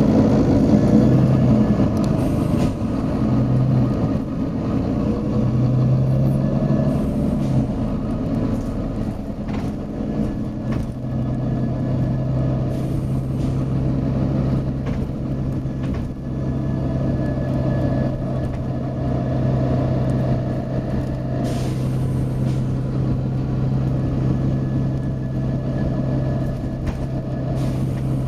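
Volvo B9TL double-decker bus running, its diesel engine making a steady drone. Short bursts of compressed-air hiss from the air brakes or air system come through about five times.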